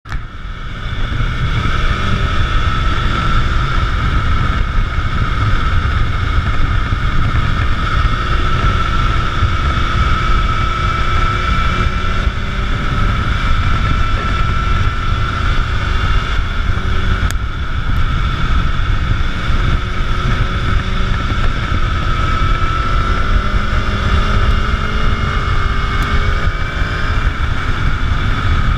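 Wind rushing over the microphone of a camera on a moving motorcycle, with the motorcycle's engine running steadily underneath, its pitch drifting slowly with the throttle.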